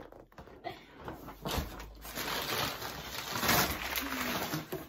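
Large cardboard shipping box being handled close to the microphone: a run of scraping and rustling cardboard that starts about a second and a half in and grows louder.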